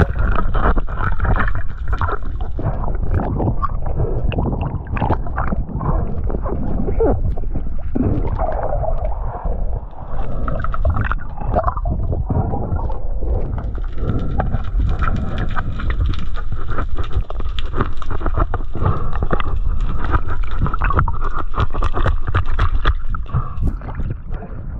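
Underwater action-camera audio of a diver handling a speared kingfish: bubbling and gurgling with many sharp clicks and knocks over a heavy muffled rumble.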